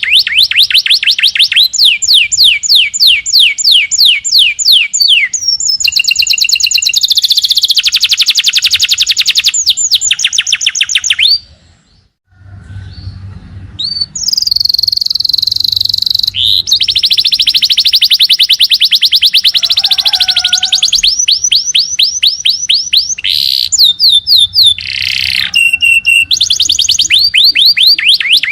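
Small songbirds singing rapid-fire 'tembakan' phrases: fast series of high, sweeping notes repeated several times a second, with a brief break about 12 seconds in before the trills resume in varied patterns.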